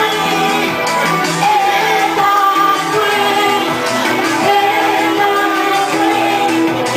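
Live Congolese folklore music: a woman sings held, wavering notes into a microphone over a steady band accompaniment.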